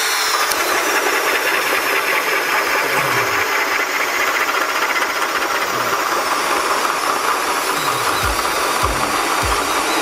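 Metabo SB 18 LTX BL I brushless cordless drill running steadily under load in first gear, driving a 68 mm Forstner bit into softwood. Music with a low thumping beat comes in near the end.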